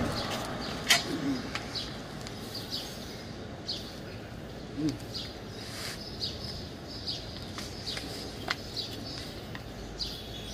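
A bird chirping over and over, short high chirps about once a second, with a sharp click about a second in.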